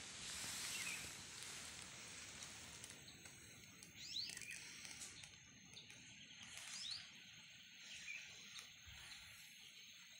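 Faint outdoor ambience: a steady hiss with a faint high insect drone, and birds chirping now and then, with two brief sweeping whistles about four and seven seconds in.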